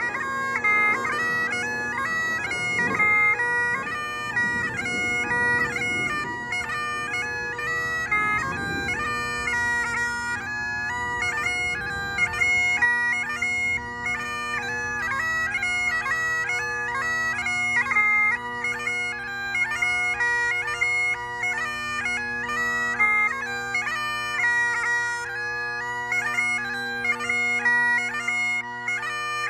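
Great Highland bagpipe played solo: a chanter melody moving quickly from note to note over the steady hum of the drones.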